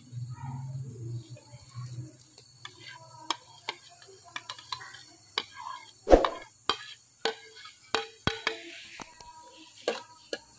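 Steel ladle clinking and scraping against an aluminium pot and a china plate as rind cubes are spooned into syrup: a string of sharp, irregular clicks and knocks, the loudest about six seconds in. A low hum sounds in the first two seconds.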